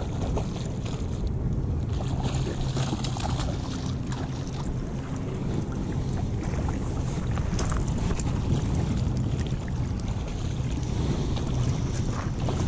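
Wind buffeting the microphone: a steady low rumble, with choppy lake water lapping and a few faint clicks.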